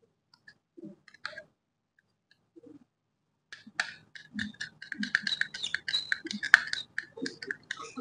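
Wires and a plastic wall switch being handled at a flush switch box: scratchy rustles and clicks of cable insulation and plastic as the wires are tucked in and the switch is held against the box. A few faint clicks at first, then dense clicking and rustling from about three and a half seconds in.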